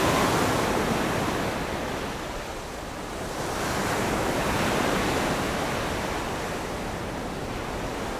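Rushing sound of waves washing on a shore, swelling at the start and again about four seconds in.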